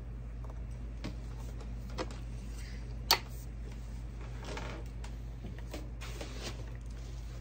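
Diana 48 side-lever spring air rifle being loaded by hand: small clicks at the breech, then one sharp metallic click about three seconds in as the loading mechanism shuts. Softer rustling follows as the rifle is brought down onto the bench, over a steady low hum.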